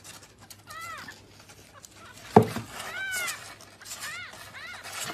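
A small kitten mewing four times, short high cries that rise and fall in pitch. A single sharp knock, the loudest sound, comes about two and a half seconds in.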